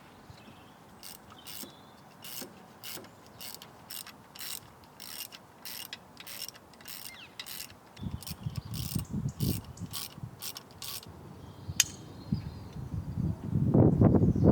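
Hand ratchet clicking in a steady run of strokes, about two a second. A louder, rougher handling noise starts near the end.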